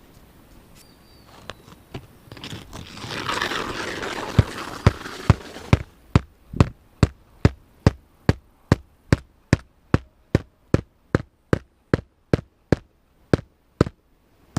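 Hammer driving a nail into composition roof shingles: a few seconds of rustling, then a long run of steady, evenly spaced strikes, about two or three a second.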